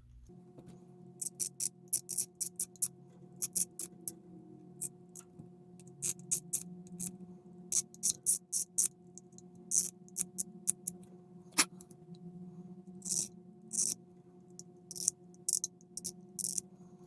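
Short, irregular scraping strokes on chrome-plated plastic model-kit parts: the chrome plating is being scraped off so that glue will stick.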